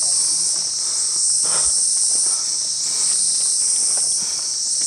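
Loud, steady, high-pitched buzzing chorus of insects, with a faint knock about a second and a half in.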